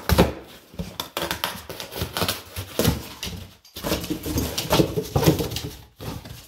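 A dog ripping and biting at a cardboard shipping box: irregular tearing, crunching and crackling of cardboard with knocks as the box shifts on the hard floor, pausing briefly a few times.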